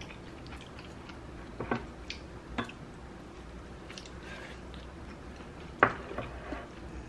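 Chewing a bite of chive pancake, with a few scattered sharp clicks of wooden chopsticks against the food and dishes, the loudest about six seconds in.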